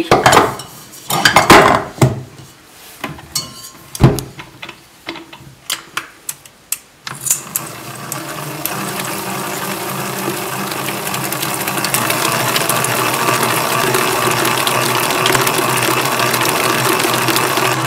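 Clinks and knocks of a metal mixing bowl being fitted onto a stand mixer, then, about seven seconds in, the stand mixer's motor starts and runs steadily, its wire whisk beating eggs and sugar in the steel bowl. It grows a little louder over the next few seconds, then holds steady.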